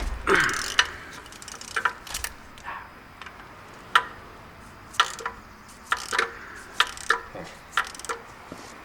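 Hand ratchet wrench clicking in separate sharp clicks, about one a second, while working the water pump bolts loose on a Jeep 2.5L four-cylinder.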